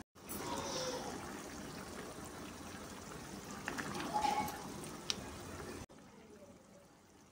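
Plastic spatula stirring mutton karahi in a pan of simmering tomato gravy: wet, sloshing stirring noise with a few light scrapes against the pan. It cuts off sharply about six seconds in, leaving only a faint sound.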